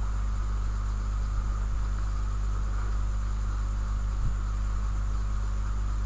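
Steady low electrical hum with a constant hiss: the background noise of a computer recording microphone. One faint click about four seconds in.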